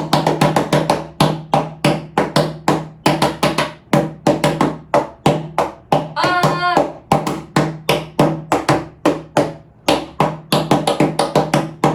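Hands tapping and clapping out a song's rhythm as percussion, several sharp strikes a second in an uneven, song-like pattern, with a short voiced sound about six seconds in.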